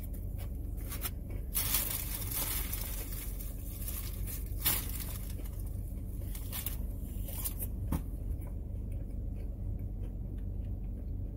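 Clear plastic cracker wrapper crinkling and rustling in several bursts, the longest about one and a half to three and a half seconds in, with light knocks and clicks from a plastic takeout tray being handled, over a steady low hum.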